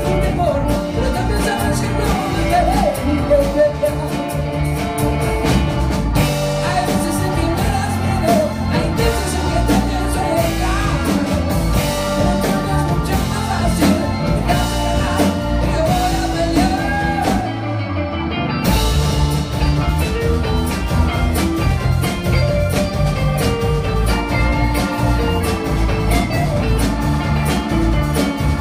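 Live band playing a song with a lead singer over a steady beat. About two-thirds of the way through there is a short break of about half a second where the bass and cymbals drop out, then the band comes back in.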